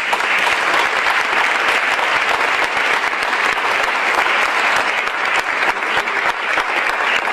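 Audience applauding: a dense, steady clatter of many hands clapping, swelling in just before and holding throughout.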